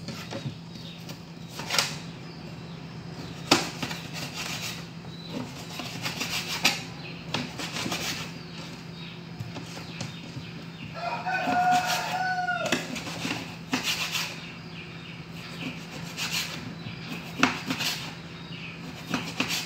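Kitchen knife cutting meat on a plastic cutting board: irregular knocks and taps as the blade strikes the board, over a steady low hum. About eleven seconds in, a pitched call sounds for about two seconds.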